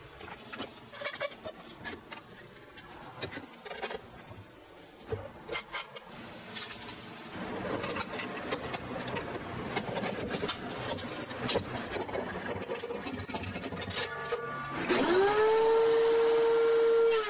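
DeWalt two-speed benchtop thickness planer switched on near the end: its motor spins up with a quickly rising whine that then holds steady, the loudest sound here. Before it come scattered clicks and knocks, then several seconds of rubbing, scraping noise.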